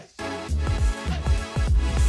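Electronic background music with a repeating beat and falling bass hits.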